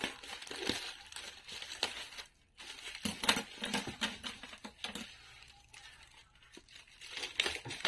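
Plastic courier mailer bag crinkling and rustling in irregular bursts as hands handle and press on it.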